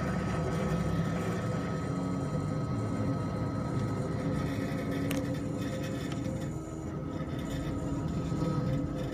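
K40 40 W CO2 laser cutter running an outline cut: a steady mechanical hum with a constant high whine, as the stepper motors drive the laser head around the shape.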